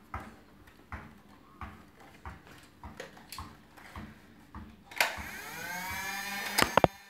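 Soft regular thumps, about one and a half a second, then a Nerf blaster's flywheel motor spinning up with a whine that rises in pitch, followed by two sharp shots in quick succession near the end.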